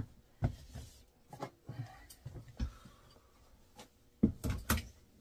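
Scattered knocks and bumps of handling, with a quick run of three louder knocks about four seconds in.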